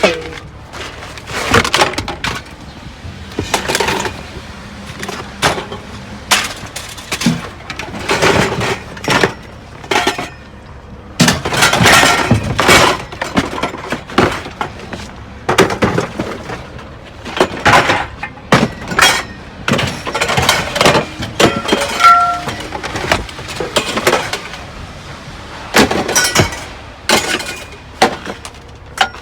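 Repeated sharp knocks, cracks and clattering of scrap metal being pried and knocked apart by hand, with a brief metallic ring about two-thirds of the way through.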